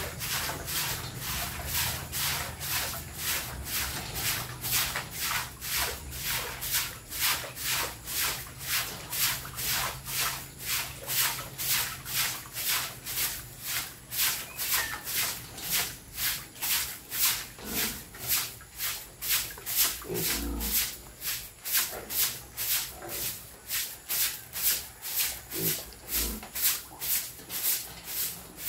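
Broom sweeping the floor of a piglet pen in quick rhythmic strokes, about two a second.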